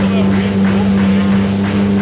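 Yamaha jet outboard motor on a small inflatable boat running at a steady speed, a constant hum with quick, regular slaps or ticks over it about three times a second.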